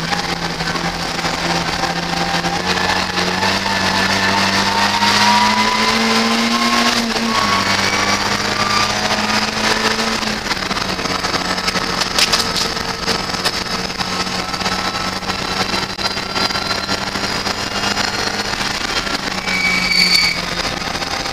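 Ford Fiesta race car's engine heard from inside the stripped cabin, running hard under acceleration. Its note rises and then drops about seven seconds in and again about ten seconds in, which fits upshifts. There is a sharp click about twelve seconds in.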